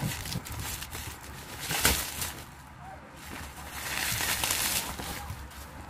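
Plastic bubble-wrap mailer crinkling and rustling as it is pulled open by hand and a box is slid out, with a sharper crackle about two seconds in.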